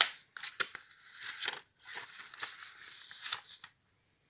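Paper pages of a printed instruction manual rustling and crackling as they are turned and handled. The sound stops abruptly near the end.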